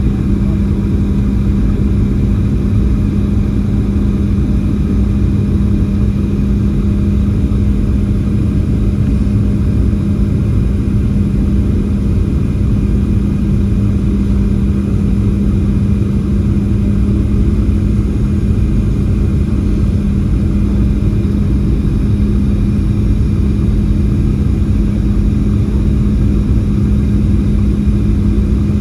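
Cabin noise of a Boeing 737-700 descending to land, heard from a window seat beside the engine: the steady drone of its CFM56-7B turbofan and rushing air, with a constant low hum.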